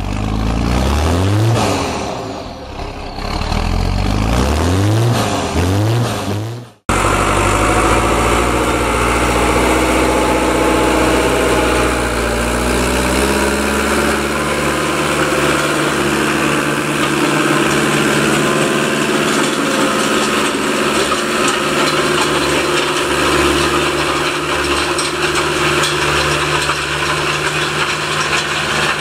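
An engine revved up several times, each rev a rising whine. After a sudden cut about seven seconds in comes the steady drone of the Fiatagri 80-90 tractor's diesel engine working under load, pulling a five-tine Alpego KD5 subsoiler through the soil.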